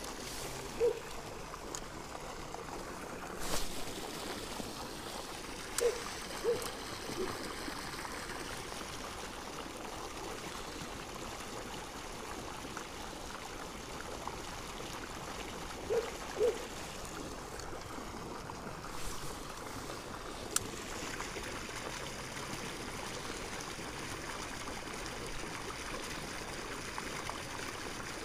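Steady trickling of running water, with a few short faint blips, some coming in pairs, and one sharp click.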